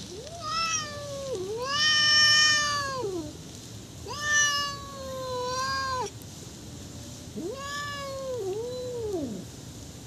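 Cats meowing: four long, drawn-out meows, each rising then falling away in pitch, the last one dipping in the middle.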